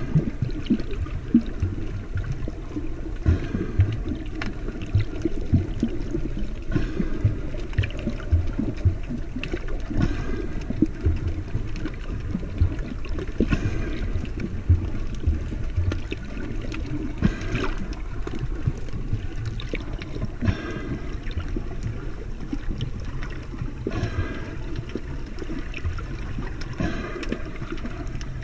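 Muffled water movement picked up underwater: a low, restless sloshing rumble with small knocks, and a louder swish every few seconds.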